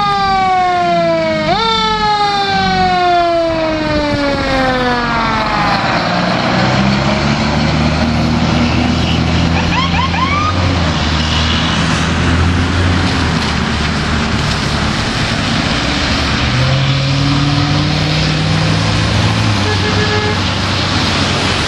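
Fire engine's Federal Q mechanical siren winding down in long falling sweeps, jumping back up once about a second and a half in, then fading out by about six seconds. After that the truck's engine rumbles steadily as it pulls away, over the hiss of tyres on a wet road.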